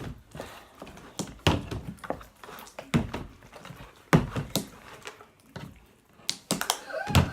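Homemade slime being kneaded and poked by hand on a table: irregular soft smacks and thumps, about one or two a second.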